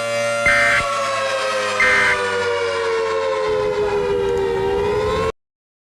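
Tornado warning siren sounding a steady tone, with three short, louder high beeps about a second and a half apart. Its pitch then falls as it winds down, and it cuts off abruptly about five seconds in.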